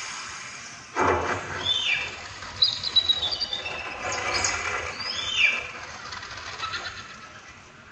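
Dolby Atmos demo soundtrack played over a Sony home theater speaker system: a series of short bird-like chirps that slide down in pitch, over a sudden rush of sound that starts about a second in.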